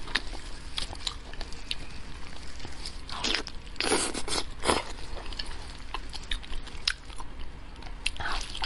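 Close-miked eating: a person biting and chewing meat pulled off a braised animal head, with many small wet clicks and mouth sounds. Louder bites come in a cluster about three to five seconds in.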